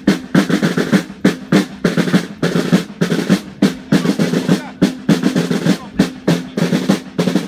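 Military snare drums beating a steady marching cadence with rolls, about three accented strokes a second, for a guard ceremony.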